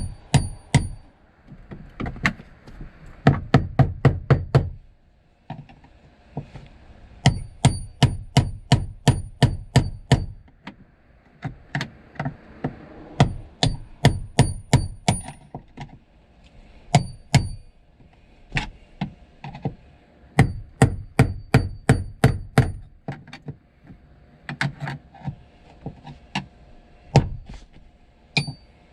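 Runs of rapid metallic hammer blows, several a second in bursts of a few seconds with short pauses between, driving round the stuck fuel pump locking ring of a 2003 Audi Allroad to loosen it.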